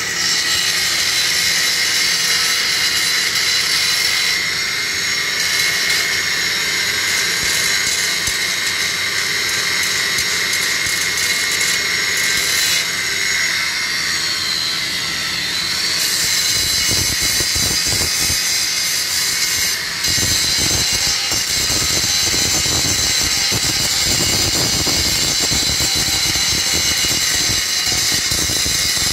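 Electric angle grinder cutting and grinding a steel beam: a loud, steady high whine over the rasp of the disc on the metal, which turns rougher and heavier about halfway through.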